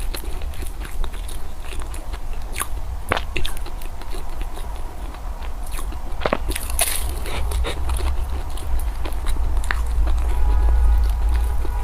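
Close-miked eating: a person biting and chewing food, with irregular crisp clicks and crackles.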